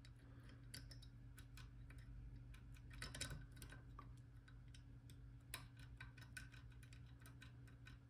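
Faint, irregular small metallic clicks of a disc-detainer pick turning the rotating discs inside an Abloy Classic padlock, setting the discs one at a time at their gates.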